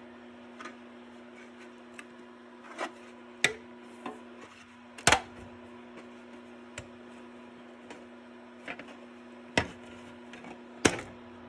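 Irregular clicks and knocks of a freshly printed 3D part being worked loose from the printer's build plate by hand, the sharpest a few seconds in and near the end, over a steady low hum.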